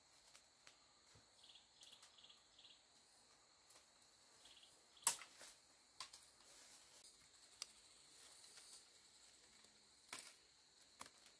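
Quiet background with a faint steady high hum and a few short high chirps, broken by scattered sharp clicks or knocks; the loudest comes about five seconds in and another about ten seconds in.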